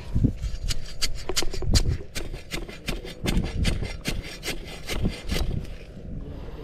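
A dense, irregular run of scraping and rubbing clicks, several a second, with a few dull low knocks among them, thinning out near the end.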